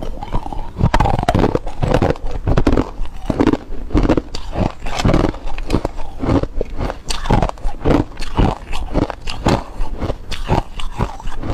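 Ice cubes being bitten and chewed up close: a steady run of sharp, loud crunches, two or three a second.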